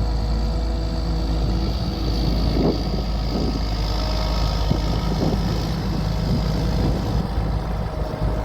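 Semi truck's diesel engine running steadily under way, with a thin high whine over it.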